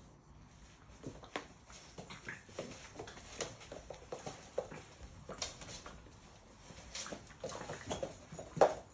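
Labrador puppies playing on a laminate floor: an irregular run of light clicks, taps and scuffles from claws scrabbling on the boards and toys being chewed and knocked about, with one louder, sharper sound near the end.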